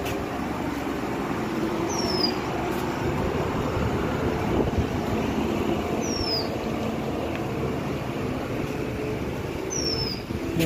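Steady rumble of vehicle noise that builds over the first few seconds and then holds. A short, high, falling chirp recurs every two to four seconds.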